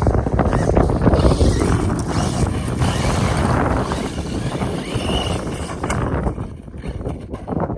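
Heavy wind buffeting the microphone, with the faint high whine of the DHK Maximus RC truck's brushless motor heard through it in the middle. The gusts ease off near the end.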